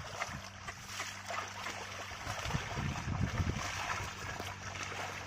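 Water and mud splashing and sloshing as bullocks pull a plough through a flooded field, busiest around the middle, over a faint steady low hum.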